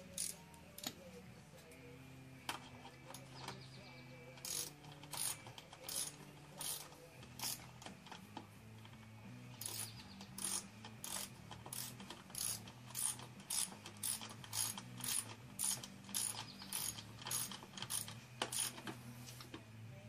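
Socket ratchet wrench clicking in repeated strokes as the wheel bolt is driven back into a lawnmower's front wheel. The strokes are sparse at first, then come steadily at about two a second.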